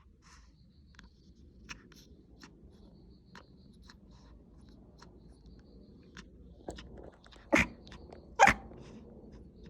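A Pomeranian makes two short, loud sounds about a second apart near the end, after faint scattered clicks. It is an unusual sound that this dog rarely makes, apparently asking for something.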